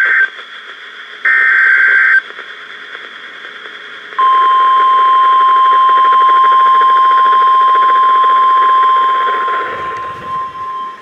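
NOAA Weather Radio Emergency Alert System signal heard over radio static. It begins with the end of one SAME header data burst and a second harsh two-tone data burst about a second in. Around four seconds in comes the steady 1050 Hz weather radio warning alarm tone, which drops away near the end.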